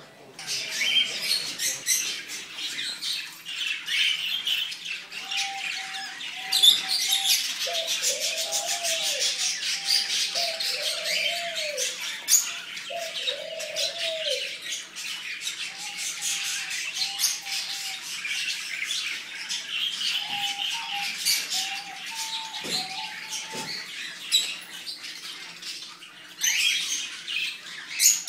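Many caged birds chirping and squawking in a dense, continuous chatter, with several lower, drawn-out arching calls among them.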